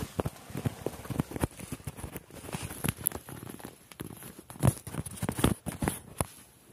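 A person moving about inside a cluttered old car: irregular knocks and taps with rustling of plastic bags and debris, and two louder knocks past the middle.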